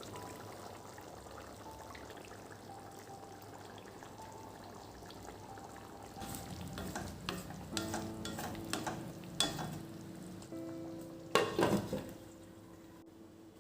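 A steady sizzling hiss, then clattering knocks from about six seconds in, the loudest a sharp clatter near the end, over soft background music.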